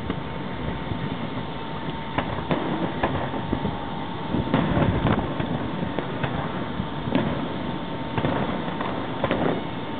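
Distant fireworks going off: scattered bangs and pops, a cluster of them near the middle, over a steady rumble of wind on the microphone.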